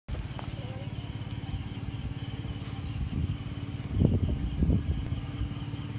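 A small motor running with a steady, rapid low putter, swelling louder twice about four seconds in.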